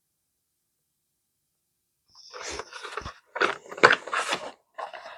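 Packaging of a hand-tool scraper set being handled and opened: a run of irregular rustling starting about two seconds in, with several sharp knocks.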